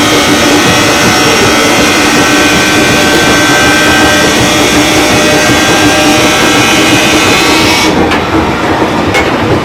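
JR 205 series electric commuter train running: loud, steady running noise with several steady whining tones over it. About eight seconds in, the high hiss drops away suddenly, followed by a click or two.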